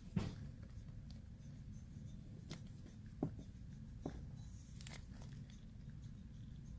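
A few light knocks and handling clicks, four or five spaced a second or so apart, over a steady low hum.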